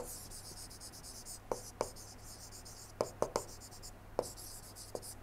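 A stylus writing a word on a tablet screen: faint scratchy pen strokes broken by several light taps of the pen tip.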